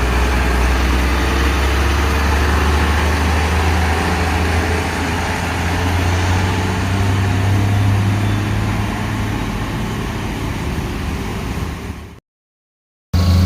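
Heavy vehicle's diesel engine pulling up a steep grade, a loud, low steady drone whose pitch rises a little midway. About twelve seconds in it cuts to silence for about a second, then an engine sound at a different pitch comes back in.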